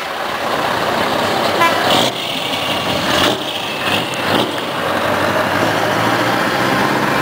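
Scania truck tractor unit driving slowly past, its engine running steadily, with a brief horn toot about one and a half seconds in.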